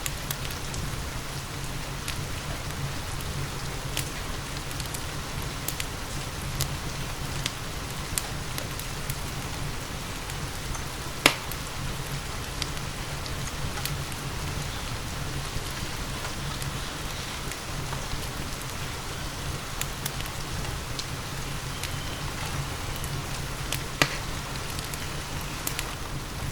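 Steady rain with a wood fire crackling, scattered sharp pops over the even hiss of the rain; the two loudest pops come about 11 seconds in and near the end.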